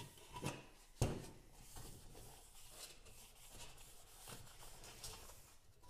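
A bare sheet-steel scooter fender being wiped and handled on a tabletop: faint cloth rubbing and light handling clicks, with one sharper knock about a second in.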